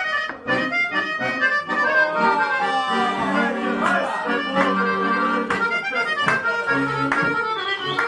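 Accordion playing a tune: steady held low chords under a changing melody line.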